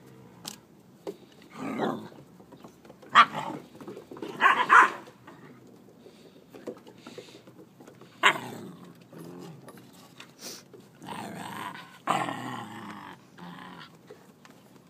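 Saluki puppies growling and barking in short bursts, about half a dozen times, the loudest a few seconds in.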